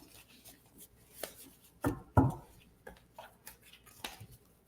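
Light handling noises, scattered small clicks and taps, with two louder knocks about two seconds in.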